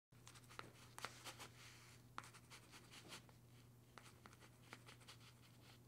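Near silence: a faint low hum with a few scattered faint clicks.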